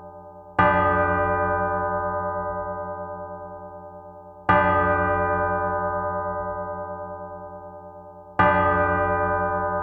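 A church bell struck three times, about four seconds apart. Each stroke rings on and slowly fades with a pulsing hum.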